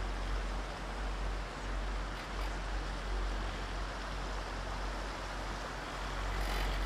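Steady rushing wind noise with a low rumble, as wind blows across the microphone on a moving open lift; a few short clicks near the end.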